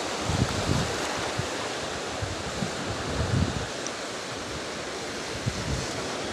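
Choppy sea surf washing steadily at the shore, with strong wind buffeting the microphone in low gusts, once about half a second in and again a little after three seconds.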